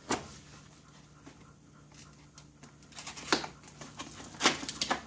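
Box and packaging of a hydraulic wire crimper being opened and handled: scattered sharp knocks and light rustling with quiet stretches between, over a faint steady hum.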